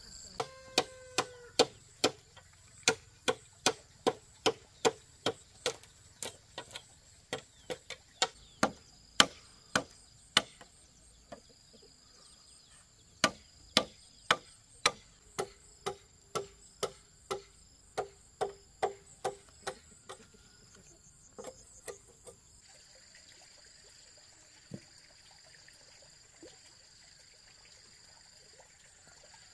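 Steady chopping blows of a hand tool on a wooden pole, about two a second, each a sharp knock with a short ringing tone. They pause for a couple of seconds near the middle, then run on again before stopping about two-thirds of the way through. Insects keep up a steady high buzz underneath.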